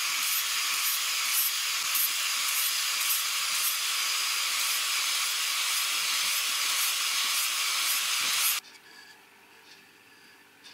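Angle grinder with a flap disc sanding down the end of a birch axe handle: a steady, high-pitched grind that cuts off abruptly about eight and a half seconds in, leaving only faint room sound.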